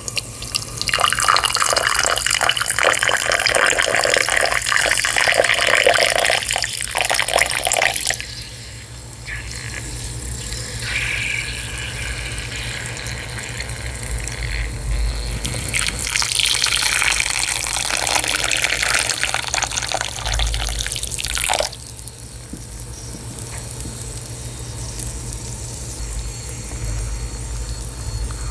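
Water poured from a kettle in a steady splashing stream onto dry lumps in a glass tumbler, stopping about eight seconds in, then a second pour into a glass bowl of grey lumps that cuts off suddenly at about twenty-one seconds. Between and after the pours, a quieter fizzing of the lumps soaking in the water.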